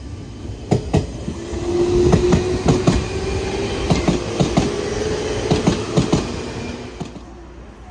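A JR West 201 series electric train pulling away and accelerating. Its wheels clack over rail joints and points in quick, uneven pairs, over a motor whine that rises slowly in pitch as it speeds up. The sound dies away near the end as the train leaves.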